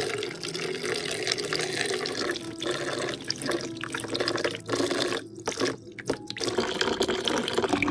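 A thin stream of water from a miniature toy tap splashing into a partly filled plastic toy bathtub. A little past halfway the stream breaks up into drips for about a second, then runs again.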